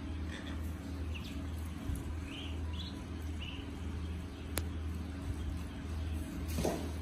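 Ducklings peeping: a handful of short, high chirps in the first few seconds, over a steady low hum. There is a single sharp click about midway and a brief rustle near the end.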